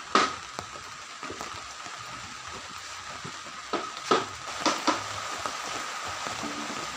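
Steady hiss of heavy rain, with a faint steady high tone underneath. A few knocks and bumps about four seconds in as a power amplifier is set down on a small wooden table.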